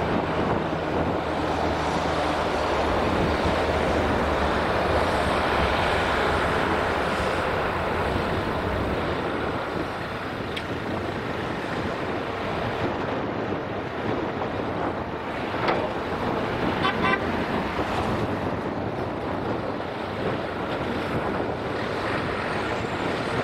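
Diesel engines of a Volvo EC480D L crawler excavator and a Mercedes-Benz Actros tipper truck running steadily while the excavator loads the truck, with a few sharp knocks about two-thirds of the way through.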